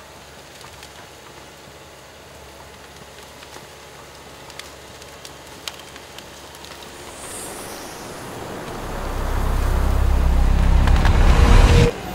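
Cat D4 forestry dozer's diesel engine running low under scattered snaps and crackles of brush and branches. Over the last few seconds the engine swells to a loud, heavy run, then cuts off abruptly.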